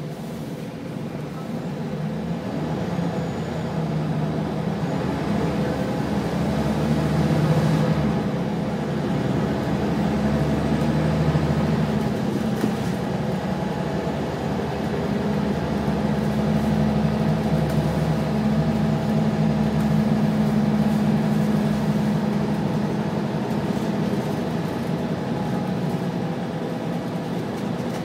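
Wright Solar-bodied Scania single-deck bus heard from inside the passenger cabin, its engine and driveline running under load. The engine note rises over the first several seconds, eases off around the middle, then builds again before falling away near the end.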